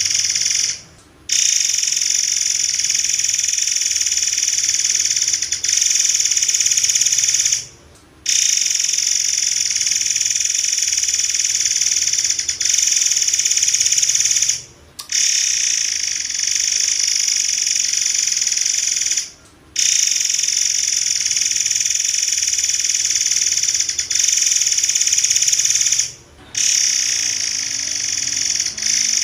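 Murai air songbird singing long, unbroken runs of shrill, high-pitched rapid-fire trilling, each run lasting about four to six seconds with brief pauses between them.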